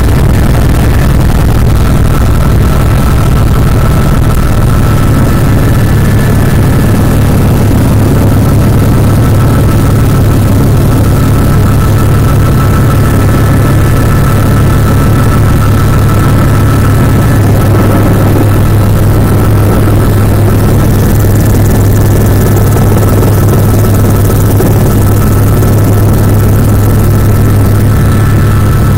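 Helicopter rotor and engine running steadily in flight, heard from inside the cabin: a loud, even low drone with a faint steady high whine over it.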